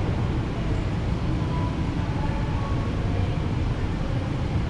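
Steady low rumble of a large indoor pool hall's air-handling system.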